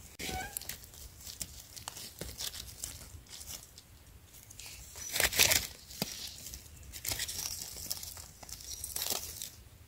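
Irregular rustling and crackling of dry leaf litter while mushrooms are picked from the ground, with a louder crackle about five seconds in.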